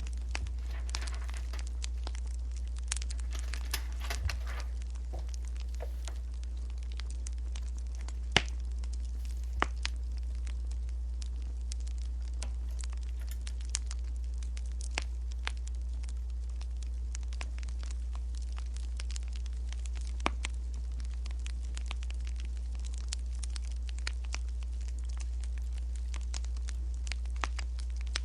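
Wood fire crackling, with scattered sharp pops over a steady low hum.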